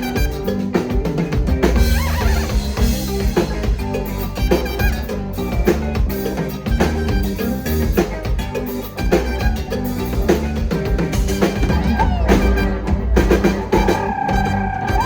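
Latin pop band playing an instrumental passage, with drum kit, bass and percussion keeping a steady beat under pitched instrument lines.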